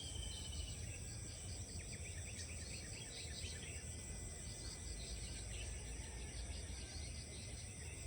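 Rice-paddy ambience: a steady high insect drone with scattered short bird chirps, over a low steady rumble.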